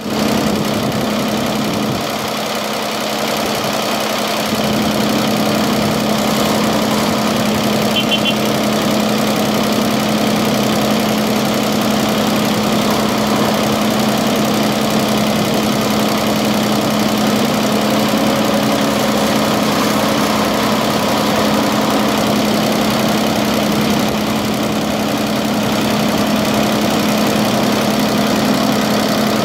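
Diesel engines of a JCB Fastrac 3230 Xtra tractor bogged in silage and a LIAZ ST 180 loader running steadily, with a constant low drone.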